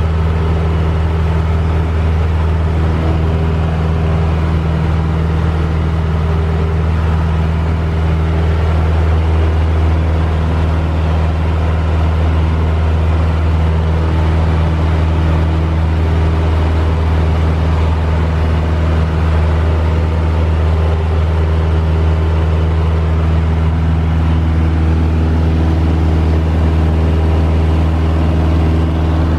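Aeronca Chief light plane's four-cylinder air-cooled engine and propeller droning steadily in flight, heard inside the cabin.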